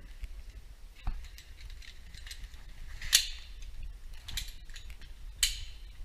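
Sharp metallic clicks and rattles from rope-access hardware (carabiners, descender) knocking against a sheet-metal ventilation duct while a worker lowers himself into it, with four louder clinks about a second apart over a steady low hum.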